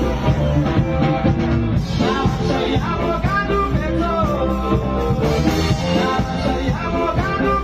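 A song playing: a singing voice over band accompaniment.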